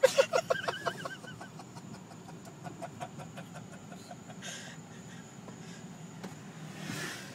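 A child giggling, a quick run of short high laughs in the first second or so, then the low steady hum of a Honda car rolling slowly, heard from inside the cabin.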